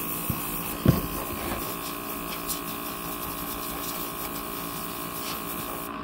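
Airbrush spraying with a steady hiss of air, over the constant hum of the small electric compressor that feeds it. A single sharp knock about a second in.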